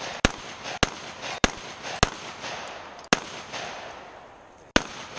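Six shots from a semi-automatic long gun fired at a shooting stage. The first four come at a steady pace about 0.6 s apart, then one about three seconds in and a last one near the end, each with a short echo.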